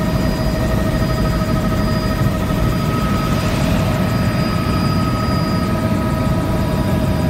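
Helicopter in cruise flight heard from inside the cabin: a steady, loud rotor and engine drone with constant high whines over it.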